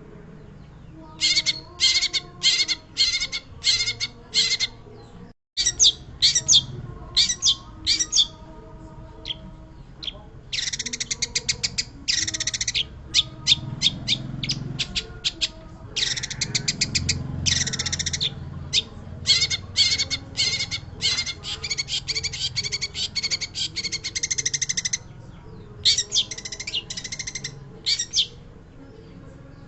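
Long-tailed shrike (pentet) singing: rapid, harsh chattering phrases of one to two seconds with short pauses between them, running on almost unbroken for several seconds in the second half. The sound cuts out for an instant about five seconds in.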